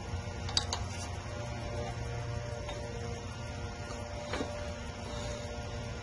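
A steady low hum with a few light clicks, a pair about half a second in and one more a little after four seconds, while hands work on the engine's exposed rocker arms and valve springs.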